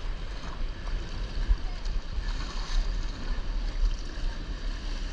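Whitewater river rapids rushing around a kayak's hull, with a steady low rumble on the microphone.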